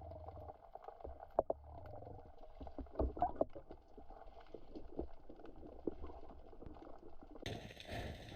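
Muffled underwater sound picked up through a camera's waterproof housing, with scattered clicks and knocks. Near the end a louder, fuller rushing noise sets in.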